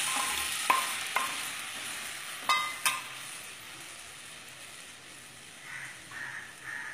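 A watery spice paste of mustard, turmeric, coriander powder and salt sizzling in hot oil in a pan. The hiss fades steadily as the liquid settles, and a few sharp metal clinks come in the first three seconds.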